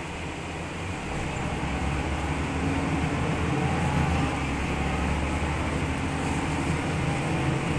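Mercedes-Benz O405G articulated bus in motion, heard from inside the cabin: the steady drone of its OM 447 hLA six-cylinder turbodiesel with road noise, growing louder over the first few seconds, then holding steady.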